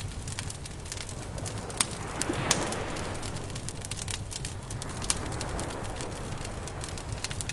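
Campfire crackling with many quick sharp pops, two louder ones about two seconds in, over a steady low rush.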